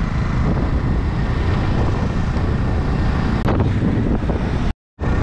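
Wind rushing over the microphone of a moving motorcycle, a steady loud buffeting noise. The sound cuts out for a moment near the end.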